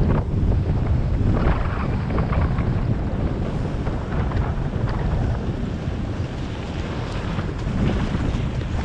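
Wind buffeting a GoPro's microphone during a ski descent, with the hiss and occasional scrape of skis on groomed snow. It grows a little quieter as the skier slows.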